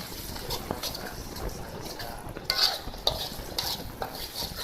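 Sambal being stirred as it fries in a pan: a utensil scrapes against the pan in irregular strokes over a frying hiss, with the loudest strokes in the second half.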